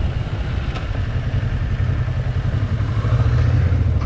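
Motorcycle engine running as the bike rides along a rough gravel road, getting louder about three seconds in.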